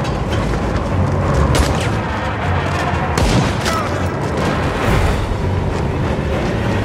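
Film soundtrack of a tornado storm: a constant deep rumble of storm wind under a music score, with a few sharp cracks.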